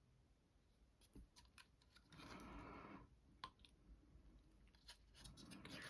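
Faint clicks and light taps of small plastic model-kit parts being handled, with a brief scratchy rustle about two seconds in.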